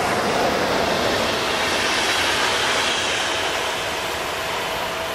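Electric-locomotive-hauled InterCity passenger train passing at speed: a steady rush of wheels on rail with a faint steady tone through it, peaking about two seconds in and easing off slightly toward the end.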